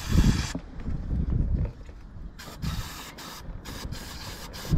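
Aerosol can of degreaser hissing as it sprays into a mower's air filter. The spray stops about half a second in and comes back in broken spurts about halfway through, over a low rumbling that is loudest in the first second or so.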